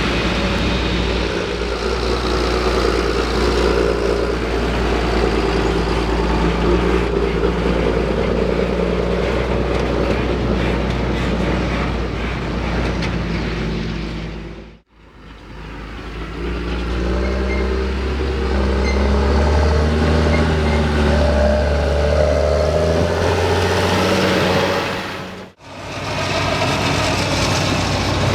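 Large diesel farm machinery working under load: a steady heavy engine note with a mechanical drone, the sound dipping out and back in twice as the scene changes.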